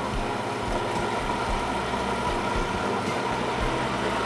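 Food processor motor running steadily, blending a liquid strawberry purée into vinaigrette.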